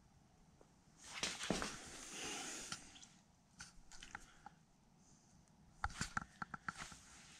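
Faint handling noises: a rough scraping rub about a second in that lasts a couple of seconds, a few light taps, then a quick run of sharp clicks near the end.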